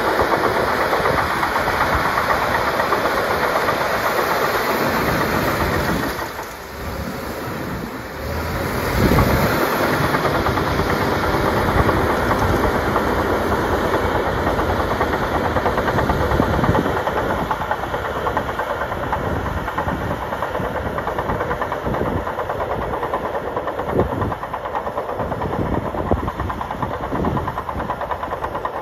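Crawler bulldozer's diesel engine running under load as it pushes snow with its blade, with the clatter of its steel tracks. Briefly quieter about six seconds in, then louder again, easing off slightly in the second half as it moves away.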